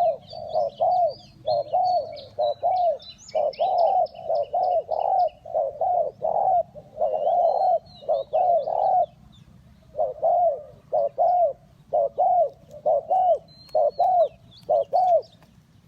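Spotted doves cooing in a long run of short, arched coos, about two to three a second, pausing briefly about ten seconds in before going on. Small birds chirp and trill faintly in high notes above them.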